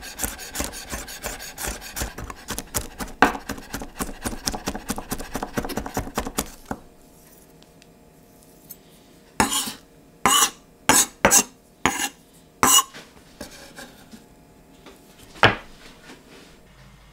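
Chef's knife rapidly chopping garlic on a wooden chopping board, a fast run of blade strokes. About seven seconds in the chopping stops, and the blade scrapes the minced garlic together across the board in half a dozen short strokes, with one last scrape near the end as it is scooped onto the blade.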